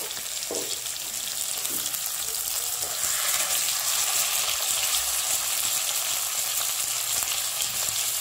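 Karimeen (pearl spot fish) shallow-frying in coconut oil in a pan: a steady sizzle full of fine crackles, a little louder from about three seconds in. The fish is cooked in a little oil rather than deep-fried.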